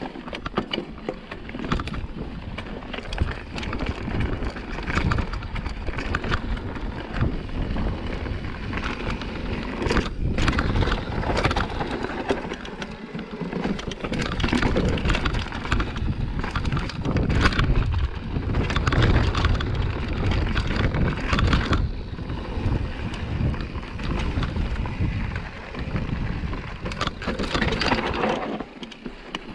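Mountain bike riding down a rocky trail: tyres crunching over loose rock and dirt, with the bike rattling and knocking over the rocks and a steady rumble of wind on the microphone.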